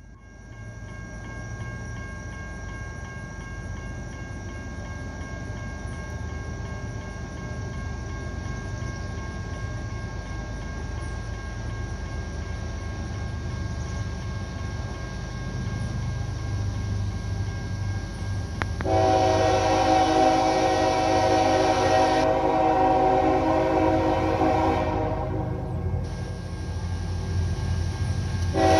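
CSX diesel freight locomotive approaching, its low engine rumble growing steadily louder. Its air horn sounds a long blast of about six seconds beginning about two-thirds of the way through, then another blast starting right at the end.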